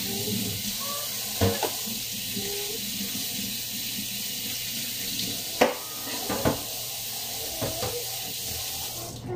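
Kitchen tap running into a sink, stopping just before the end, with a few clatters of dishes or utensils against the sink.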